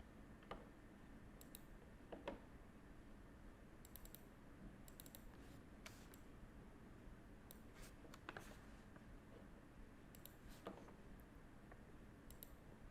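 Faint, irregular clicks from a computer mouse and keyboard, a dozen or so scattered over quiet room tone.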